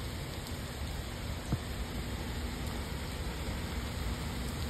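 Steady rain, an even hiss with a low rumble beneath it, and one sharp tick about a second and a half in.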